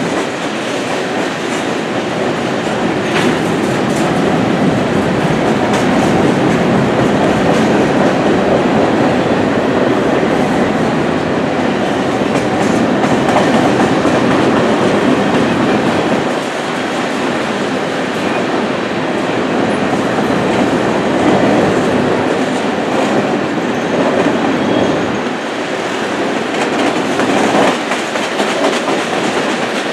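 Canadian Pacific grain train's covered hopper cars rolling steadily past: a loud, continuous noise of steel wheels on the rails, with clickety-clack as the wheels cross rail joints.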